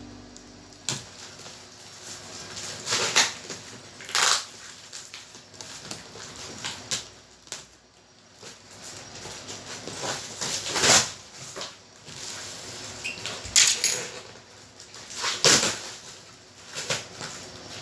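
Packaging being handled during an unboxing: irregular rustles and knocks, several louder bursts a second or two apart.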